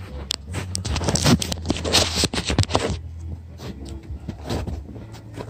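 Scraping and rustling with sharp clicks for the first few seconds, then quieter scattered rustles over a steady low hum.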